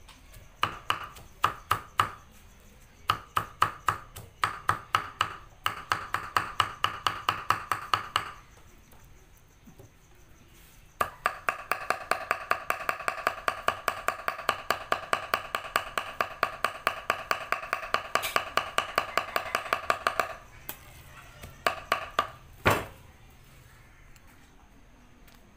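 Cleaver chopping on a round wooden chopping block, mincing meat with herbs: runs of fast, even knocks, about five strokes a second, with short pauses between runs, each knock carrying a ringing tone. A few single strokes come near the end.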